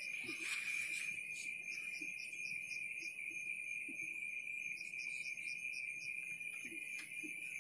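Night insects calling: one steady high-pitched trill, with runs of quick, evenly spaced chirps above it that start and stop.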